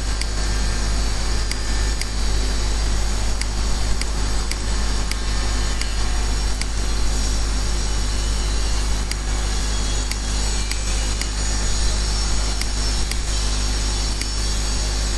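Steady background hum and hiss with a strong low drone, plus faint ticks at an even pace.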